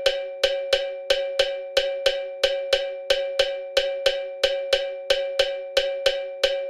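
A metallic, bell-like pitched tone struck over and over at a steady pace, about four strikes a second, each strike ringing on into the next.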